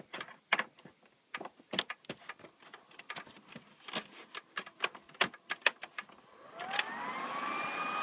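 Sharp clicks and knocks of the power cable and console being handled, then about six and a half seconds in the PS3 Slim's cooling fan spins up with a rising whine that settles into a steady high whine and rush of air. The fan is being run at full speed to blow the dust out.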